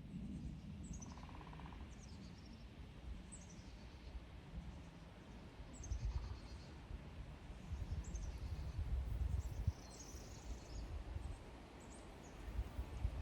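Outdoor ambience of a bird singing short, high, falling chirps, repeated every second or so. Low rumbling swells come and go under it, loudest in the second half.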